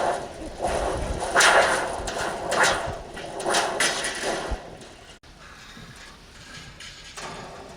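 Hurricane-force wind gusting in noisy surges, the strongest about a second and a half in, with several more over the next few seconds. About five seconds in it drops abruptly to a quieter, steady rush.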